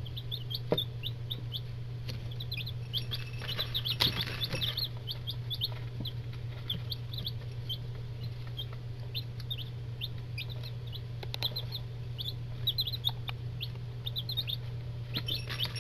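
A brood of 8-day-old domestic chicken chicks peeping continuously, many short high cheeps overlapping, over a steady low hum.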